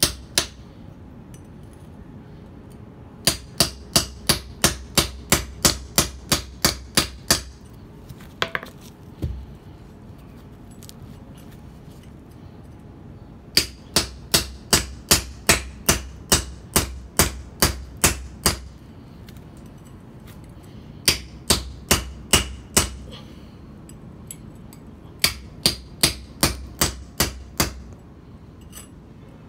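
Hammer striking a mason's chisel to cut stone, in quick runs of sharp blows about two to three a second, with pauses of a few seconds between the runs.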